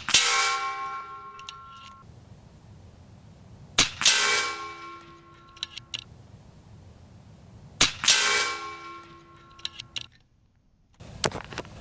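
Three shots from a .30-calibre PCP air rifle about four seconds apart. Each sharp crack is followed about a quarter second later by a ringing metallic clang as the pellet strikes downrange, then a few light clicks.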